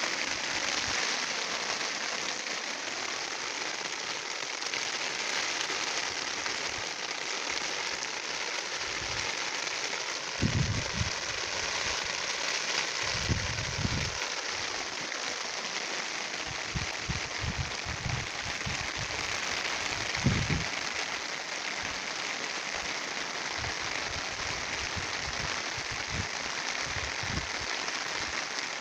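Steady rain falling on a water-filled ditch and a ploughed field: an even, continuous hiss of drops, with a few low bumps now and then in the middle.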